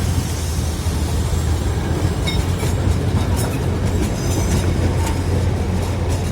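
Darjeeling Himalayan Railway narrow-gauge toy train running, a steady low rumble with a few light clicks and brief high squeaks from the wheels and cars.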